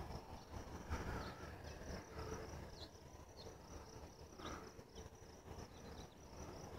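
Faint outdoor ambience: a steady high-pitched insect trill, with a few short chirps over a low rumble.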